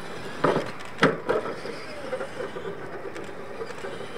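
Radio-controlled monster trucks knocking against wooden ramps and the dirt track, with two loud sharp knocks about half a second and a second in and a smaller one just after. Then the trucks' motors whine with a wavering pitch as they drive on.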